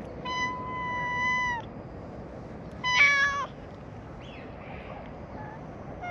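Brown tabby cat meowing twice: one long, steady meow, then a shorter, louder one about three seconds in, a complaining call aimed at another cat.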